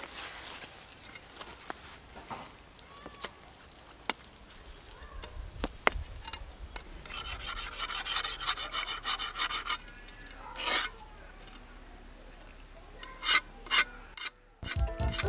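A blade scraping against a wooden stick in quick, repeated rasping strokes for a few seconds around the middle, followed by a few sharp clicks near the end.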